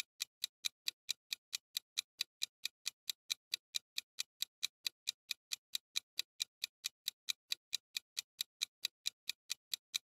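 Clock-ticking sound effect timing a ten-second countdown: sharp, even, high ticks, about five a second.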